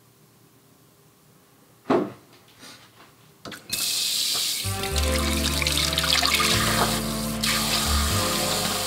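A single sharp clink about two seconds in, then a kitchen tap is turned on and water runs steadily into a stainless-steel sink as dishes are washed. Background music with a steady bass line comes in shortly after the water starts.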